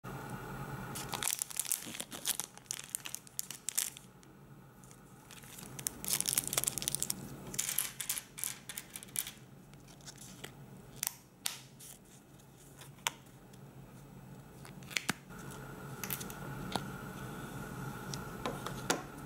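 Thin plastic snack-toy wrapper being torn open and crinkled by hand, dense crackling rustles through the first eight seconds or so. After that, scattered small clicks and rustles as the plastic toy parts and fishing line are handled.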